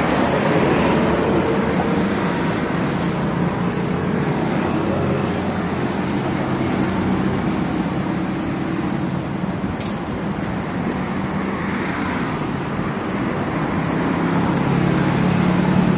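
Steady road traffic: vehicle engines running and passing, with one engine growing louder near the end. A single short click about ten seconds in.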